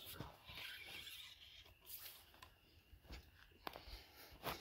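Faint rustling and scattered light clicks of footsteps through dry grass, with one sharper click near the end.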